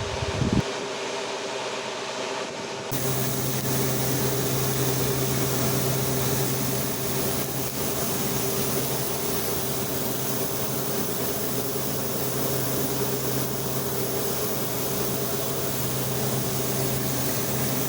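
Grain-handling machinery at a corn silo running steadily: a constant mechanical hum with hiss. About three seconds in it becomes fuller and a little louder, with a steady low drone joining.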